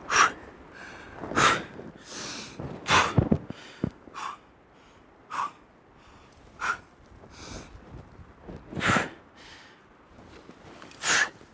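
Rock climber breathing hard under strain: about a dozen sharp, forceful exhalations, roughly one a second, while pulling through a hard 7c pitch.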